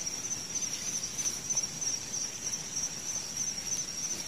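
Crickets chirring in a steady, high, slightly pulsing trill.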